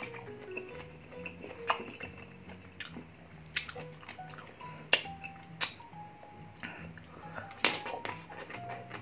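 Mukbang eating sounds: five or so sharp crunches as slices of raw green mango are bitten and chewed, over quiet background music.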